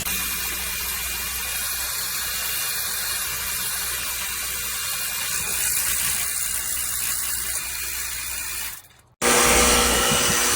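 Cordless handheld pressure washer running, its small pump whirring under the hiss of the water spray. The sound fades out about nine seconds in and comes back louder half a second later.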